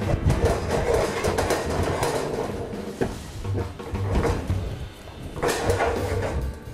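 Wooden spoon stirring almonds through caramelised sugar in a metal frying pan, with irregular scrapes and knocks against the pan, at the caramel stage of almond brittle.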